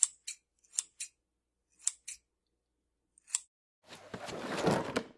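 Scissors snipping: about seven short, sharp snips, several in quick pairs, over the first three and a half seconds. Near the end comes a whoosh, about a second long, that swells louder and then stops.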